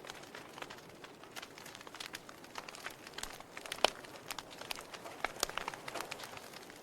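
Wood fire burning in a fireplace: steady hiss with irregular crackles and pops, one sharper pop about four seconds in.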